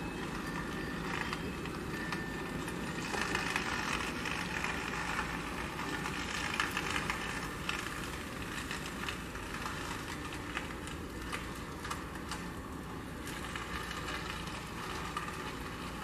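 Strong winter wind gusting through bare tree branches, a steady rush that swells into louder gusts about three and again about seven seconds in, with a low rumble of wind on the microphone.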